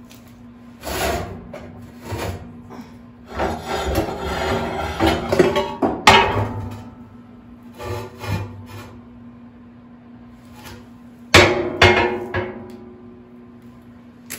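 Scraping and knocking inside a wood stove's firebox as it is cleaned out by hand and with a tool, metal and fire brick clattering in irregular bursts. A sharp metallic clank with a short ringing comes near the end.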